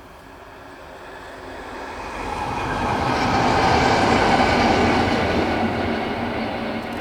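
Steam-hauled train headed by BR Standard Class 7 'Britannia' Pacific No. 70000 approaching and running past, building to its loudest about four seconds in and then easing away.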